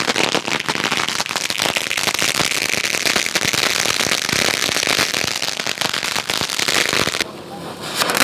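Lit fireworks crackling and hissing: a dense run of rapid pops over a steady hiss, dipping briefly about seven seconds in and then picking up again.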